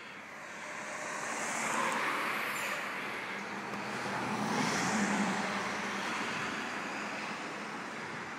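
Road traffic: a car passing close by about two seconds in and another around five seconds in, each swelling and fading, with a low engine hum under the second.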